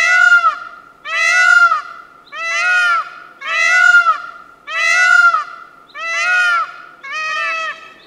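Indian peafowl (peacock) calling: a loud, nasal honking call repeated in a steady series, about one call a second.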